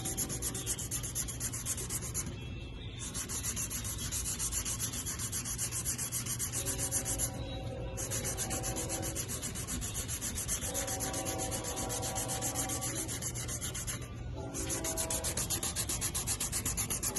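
Sandpaper on a flexible sanding stick being pushed back and forth by hand over a thick sprayed coating in rapid strokes, block sanding to level high and low spots. The strokes stop briefly three times, about 2.5, 7.5 and 14 seconds in.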